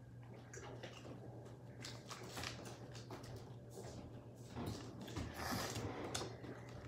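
Faint scattered rustling and handling noises over a steady low hum, busier and louder about five seconds in.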